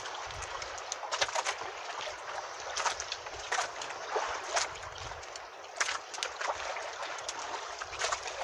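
Water lapping and sloshing against a small outrigger boat's hull, with irregular splashes and knocks.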